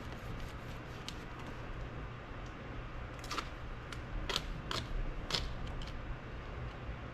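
Tape being handled: a few short scratchy rips about halfway through as strips of tape are torn and pressed on, over a low steady hum.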